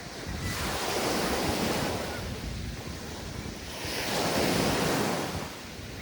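Mediterranean sea waves washing onto the beach, two surges swelling and fading about three seconds apart, with wind rumbling on the microphone.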